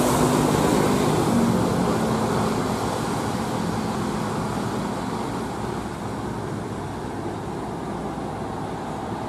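Laden UD Quester heavy truck's diesel engine running under load, a steady low drone over tyre noise on a wet road. The engine tone fades after about three seconds and the sound slowly gets quieter.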